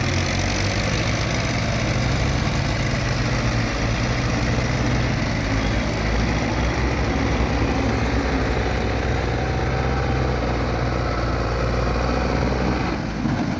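Belarus tractor's diesel engine running steadily under heavy load as it pulls a trolley piled high with sugarcane.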